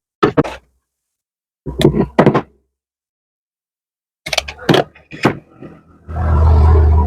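Workshop knocks and thunks, as of wooden pieces and tools being handled on a bench, in three short groups, then a brief steady low noise lasting about a second near the end.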